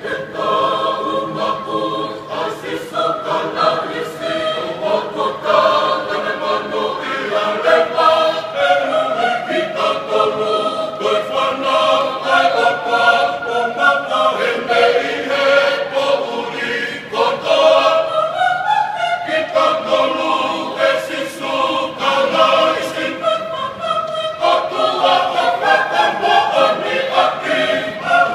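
Tongan church choir of men's and women's voices singing a piece together.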